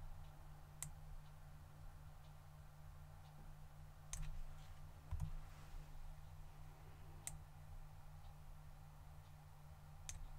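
Scattered clicks of a computer mouse and keyboard keys, a handful spread a few seconds apart, over a faint steady low hum.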